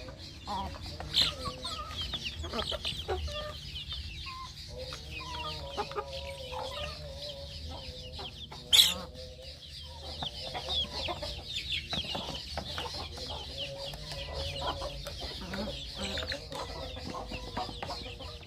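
A flock of free-range village chickens clucking and peeping continuously while they feed, with one sudden sharp sound about nine seconds in.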